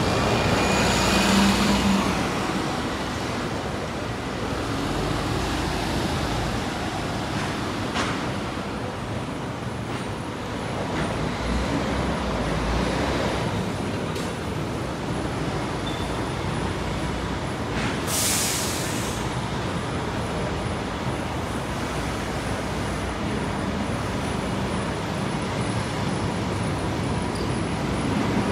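City buses running at a bus interchange over steady traffic noise, with a short air-brake hiss about a second in and a sharper one around eighteen seconds in.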